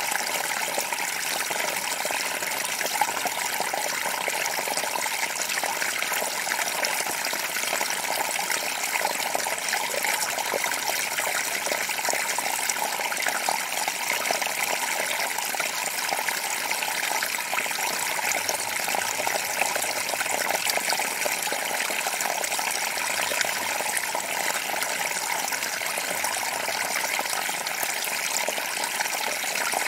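Small forest creek running over rocks: a steady, unbroken rush of flowing water with many fine splashes.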